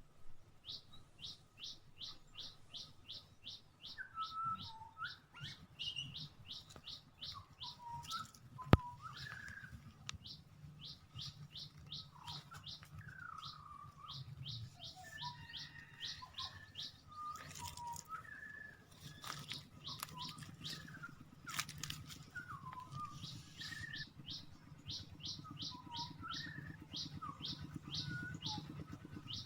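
Songbirds calling: a high, quick chirp repeated about four times a second in long runs, with softer, lower chirps and calls in between. One sharp click comes about nine seconds in.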